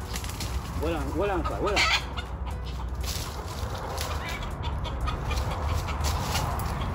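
A bird call: three quick hooting notes, each rising then falling in pitch, about a second in, ending in a short scratchy rasp.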